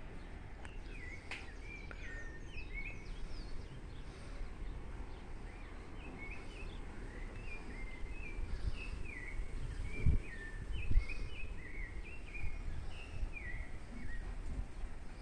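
Sabiá (a thrush) singing a string of short whistled phrases with quick downward slurs. Under it runs a low rumble on the microphone, with two dull thumps about ten and eleven seconds in.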